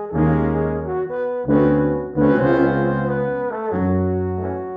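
Four French horns and a tuba playing in harmony, with chords changing every second or so over low tuba notes.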